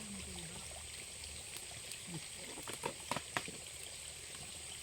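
Steady wash of flowing water with a thin, high-pitched steady whine over it, and a quick cluster of sharp clicks about three seconds in.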